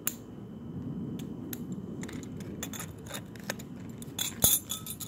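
Scattered small metallic clicks and clinks of hand tools working a lithium-ion battery apart, with one sharper knock near the end.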